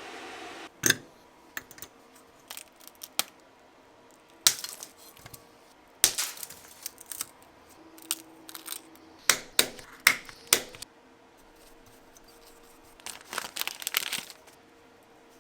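Phone repair handling noise: irregular sharp taps, clicks and crinkling from tools and parts being worked on a bench, with small flurries of quick taps.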